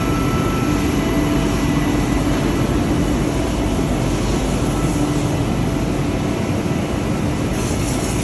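Steady drone of cabinet-factory workshop machinery and air handling, with a faint hum that comes and goes.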